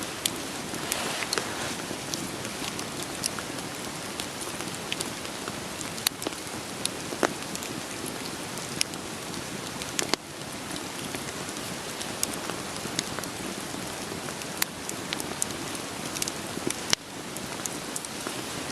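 Steady rain hissing, with a wood fire crackling over it in scattered sharp pops.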